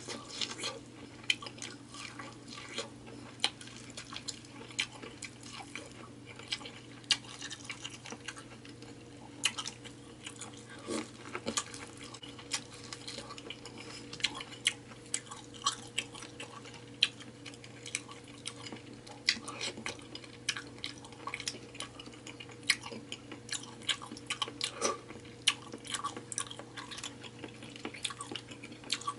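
Close-miked wet eating sounds from a seafood boil: irregular smacking, sucking and clicking of lips and mouth as seafood in sauce is chewed. A faint steady hum runs underneath.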